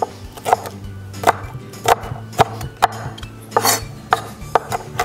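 Kitchen knife rough-chopping garlic cloves on a cutting board: a steady run of sharp chops, about two a second.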